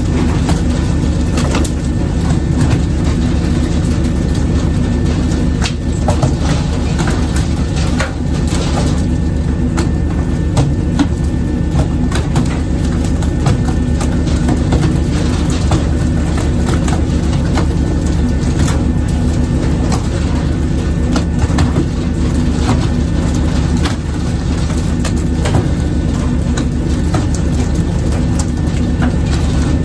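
Steady low drone of the fishing boat's engine, with frequent, irregular sharp knocks and slaps as skipjack tuna are swung aboard and land on the deck.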